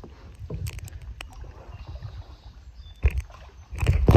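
Kayak paddling: paddle strokes in the water with several short, sharp knocks, the loudest cluster near the end, over a steady low rumble.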